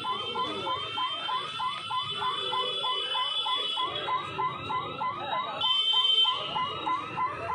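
Level-crossing warning alarm sounding a fast run of rising electronic chirps, about three or four a second, warning of an approaching train. A high steady tone sounds over it for the first few seconds, then again briefly and louder about six seconds in.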